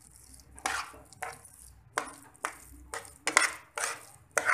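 Slotted metal spatula scraping and knocking against a stainless steel frying pan while stirring a thick sauce filling, in repeated strokes about twice a second.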